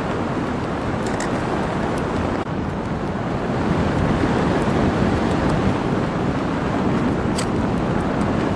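Wind noise from airflow over the camera microphone of a paraglider in flight: a steady, deep rushing sound, with a brief dip about two and a half seconds in.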